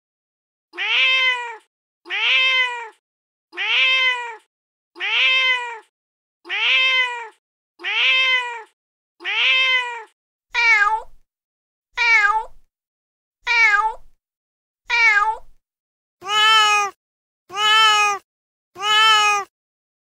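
Recorded domestic cat meows played back over and over: one meow repeated seven times about a second and a half apart, then a shorter, different meow four times, then a third, fuller meow three times. Each repeat has the same shape, as sound clips replayed rather than a live cat.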